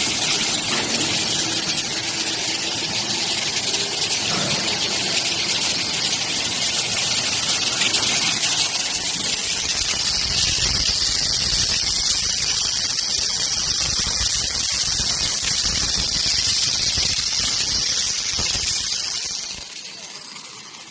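Electric welding arcs hissing and crackling steadily on a beam welding trolley, a loud sizzling noise that grows brighter and higher about halfway through and drops off sharply near the end as the welding stops.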